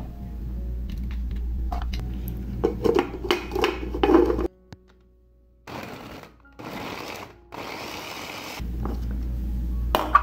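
Small kitchen food chopper whirring in three short bursts as its blades chop green chillies, curry leaves, ginger and garlic into a coarse paste. Clicks and knocks from handling the chopper come first.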